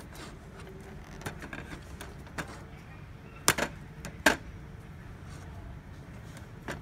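Sharp plastic clicks and taps from a laser printer's toner cartridge being handled and turned by hand at its plastic end cap. The two loudest come close together a little past the middle, with a few lighter clicks around them.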